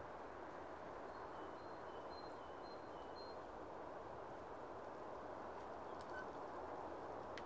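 A small songbird calling a quick series of short clear notes that alternate high and low, lasting about two seconds, over a steady outdoor hiss.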